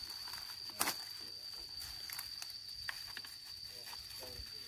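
Dry bamboo leaf litter rustling and crackling as a man pokes a stick through the undergrowth, with one sharp snap about a second in. A steady high-pitched whine runs underneath.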